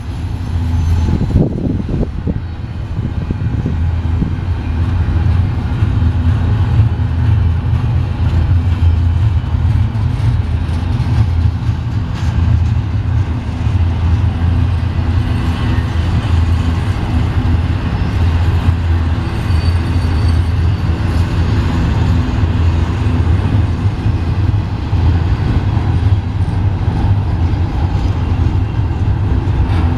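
Double-stack container well cars of a BNSF intermodal train rolling past close by: a loud, steady low rumble of steel wheels on the rails, with a few clanks near the start.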